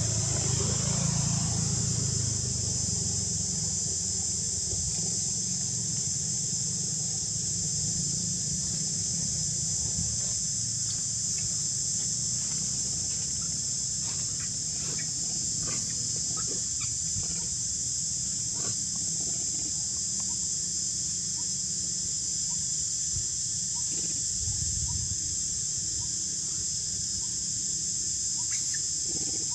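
Steady, high-pitched drone of an insect chorus over a low rumble, with scattered faint short chirps in the second half.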